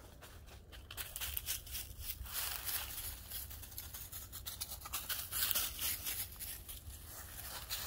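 Footsteps walking through dry fallen leaves: a quick, irregular run of rustling steps that gets louder about a second in.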